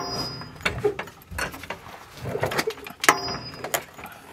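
Metal-on-metal clinks from hand work on a car's rear axle and suspension: two sharp clinks with a brief ring, about three seconds apart, among lighter knocks and scraping.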